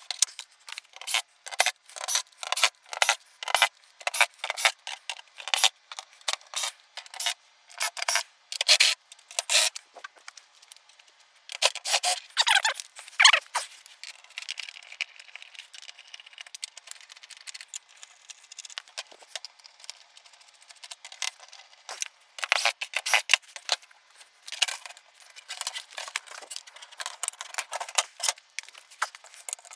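Irregular clicking, rattling and scraping of hand work taking apart a flat-screen TV: screws, metal brackets and plastic parts being handled and removed. The clicks are densest for the first ten seconds or so, ease off in the middle, then pick up again about two-thirds of the way through.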